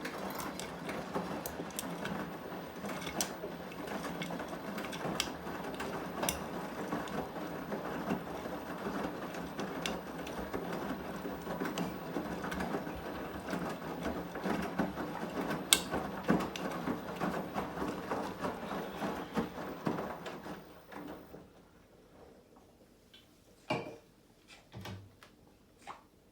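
A Beko appliance running with a dense, rattling, grinding mechanical clatter, an abnormal noise that points to a fault. It stops after about twenty seconds, and a couple of short knocks follow near the end.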